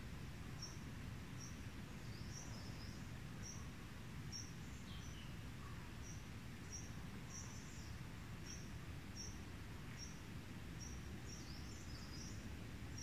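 Faint outdoor ambience: a short high chirp repeating evenly about every three-quarters of a second, with scattered bird twitters, one gliding downward about five seconds in, over a steady low rumble.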